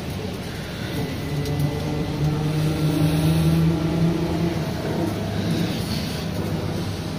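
Cabin sound of a PTZ-5283 trolleybus on the move: the electric traction drive hums with a low tone that rises a little in pitch and grows louder about two to four seconds in as the trolleybus picks up speed, over a steady wash of road and tyre noise.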